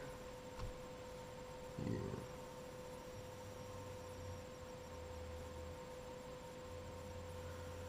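Steady, faint electrical hum: one even tone with a weaker higher overtone over quiet room tone. A brief voiced murmur comes about two seconds in.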